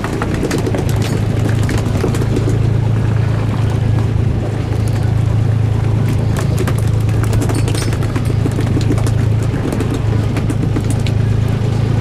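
Boat engine running steadily, a constant low drone.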